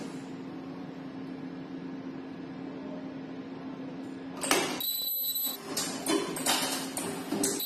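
Bench-top ultrasonic ear-loop welding machine for N95 masks humming steadily, then about halfway through a burst of hiss with a high-pitched whistling whine as the pneumatic welding head cycles on a mask. Further hissing bursts follow, and the whine comes again near the end.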